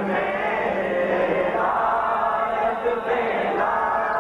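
Many men's voices chanting together in a devotional recitation, the voices overlapping in a steady group chant.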